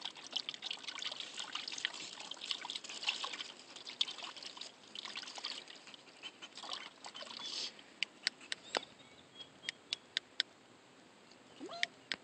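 A hand swishing and splashing the water in a shallow plastic kiddie pool: a busy patter of small splashes and trickles, thinning after about eight seconds to a few separate plinks.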